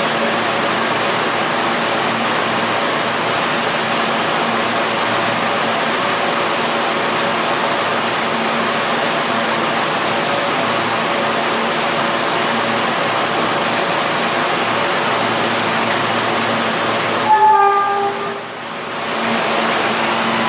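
R143 subway train at a station platform: a steady rush and hum from the train, with a few held tones in it. About 17 seconds in, a short pitched signal tone sounds for about a second, and the noise then dips briefly before it comes back.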